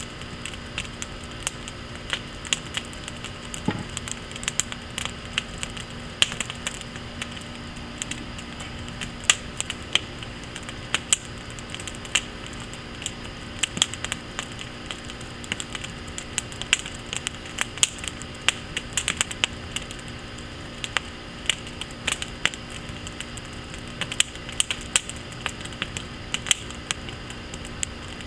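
Wood fire in a firepit crackling, with frequent sharp snaps and pops at irregular intervals over a steady hiss.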